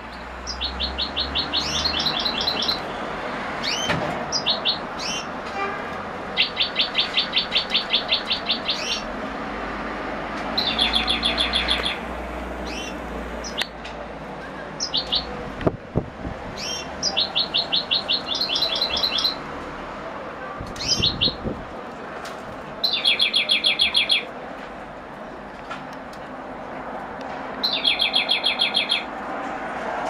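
European goldfinch singing in a cage. It repeats trilled phrases of rapid, evenly spaced high notes, each one to three seconds long, every few seconds.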